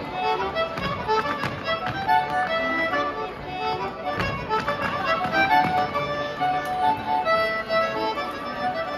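A lively traditional dance tune playing for rapper sword dancers, with sharp taps and clicks from the dancers' stepping feet on the wooden floor.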